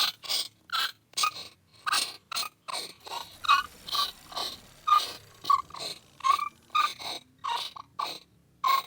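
A steady run of short, sharp taps or clicks, about two to three a second, each with a brief ringing note.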